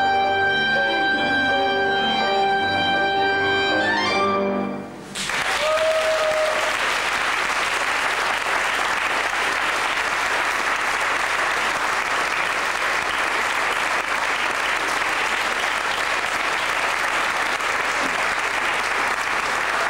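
Clarinet, cello and violin holding a final chord, which ends about five seconds in. The audience then applauds steadily.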